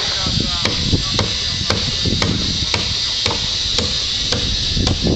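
Hammer blows on a timber-frame building site, evenly paced at about two a second, over a steady hiss.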